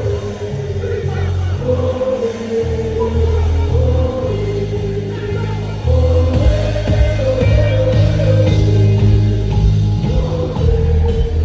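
Live music with singing over a heavy bass line; the beat comes in stronger and louder about six seconds in.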